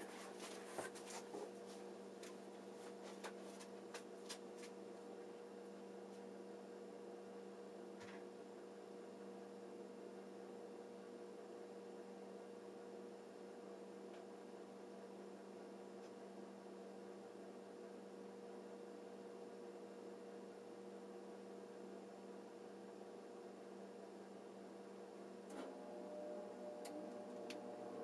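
Faint steady electrical hum over quiet room tone, with a few soft clicks in the first few seconds; a slightly louder sound with a new tone joins about two and a half seconds before the end.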